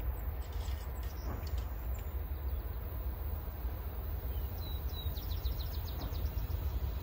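Steady low rumble of outdoor ambience, with a bird's rapid trill of about ten short high notes about five seconds in.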